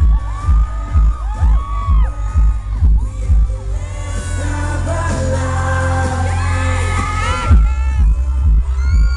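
Live pop song played loud over a PA: sung male vocals over a steady thumping kick-drum beat, with a crowd whooping. About three and a half seconds in, the beat drops out under a held, swelling build. It cuts off suddenly about seven and a half seconds in, and the beat comes back.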